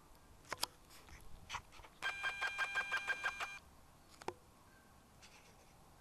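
An electronic beep pulsing quickly, about five times a second, for about a second and a half, with a few sharp clicks before it and one after.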